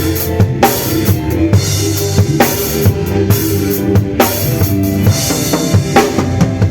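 A band playing, with a drum kit keeping a steady beat on bass drum and snare and a cymbal crash about every two seconds, over sustained pitched instruments.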